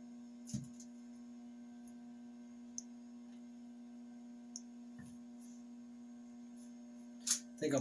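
Steady electrical hum with a few faint clicks and taps as plant cuttings are handled in a small glass jar of water, and a sharper knock near the end.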